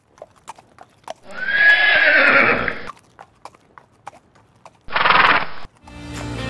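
A horse whinnies for about a second and a half, with sharp hoof clip-clops scattered around it. A second, shorter horse call follows about five seconds in. Acoustic guitar music starts near the end.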